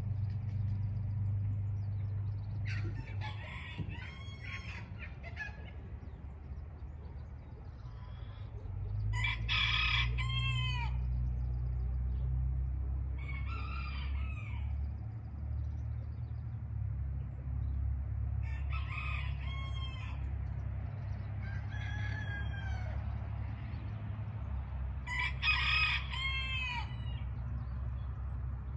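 A rooster crowing about six times, every four seconds or so, some crows fainter than others, over a steady low hum.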